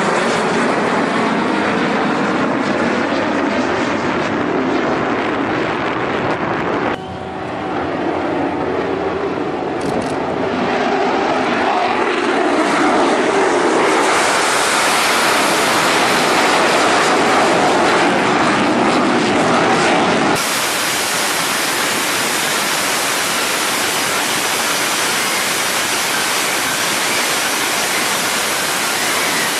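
Jet aircraft engine noise, with an abrupt break about seven seconds in. About twenty seconds in it switches suddenly to a steady, even hiss.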